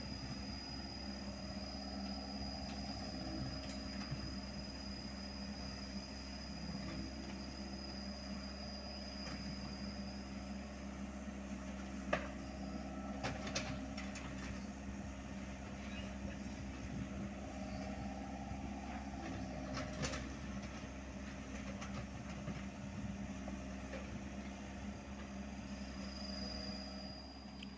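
Hyundai R80-7 mini excavator's diesel engine running steadily while it digs and swings, with its note swelling now and then under hydraulic load. A few sharp knocks come past the middle.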